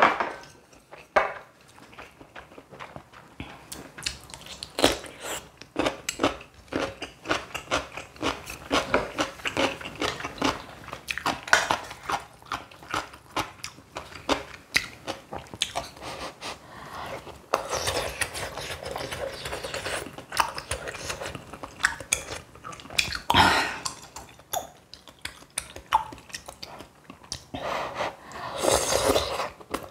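Close-miked eating: crisp, crunchy bites and chewing of stuffed cucumber kimchi (oi-sobagi), with many short mouth clicks and a few longer noisy stretches, the loudest near the end.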